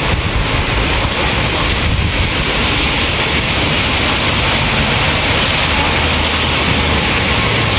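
Steady rain falling, a dense even hiss with a low rumble underneath.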